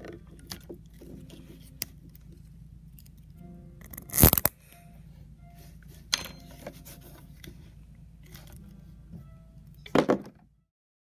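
Scattered clicks and scrapes from a hand tool working a black plastic cable tie, with a loud sharp snap about four seconds in and another just before the sound cuts off. Faint music-like tones sit underneath.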